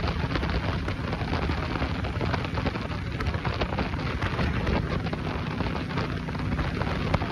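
1981 Yamaha Virago XV750's air-cooled 750cc V-twin running steadily while riding at road speed, half buried under heavy wind rush buffeting the microphone.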